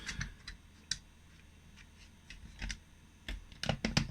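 Small plastic clicks and taps from handling a helping-hands soldering stand, scattered irregularly, with a quick run of louder clicks near the end.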